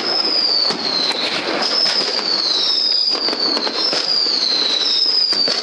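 Many fireworks going off at once: a continuous crackle with many sharp bangs. Over it a high whistle slides down in pitch and repeats about once a second.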